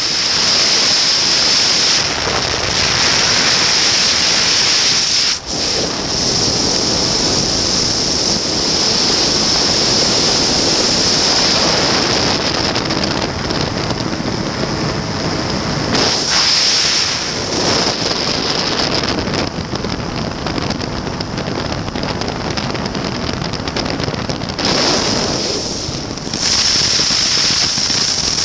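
Heavy wind buffeting on the microphone of a flexwing microlight trike in flight, easing and rising a few times, over the steady drone of its Rotax 912 engine.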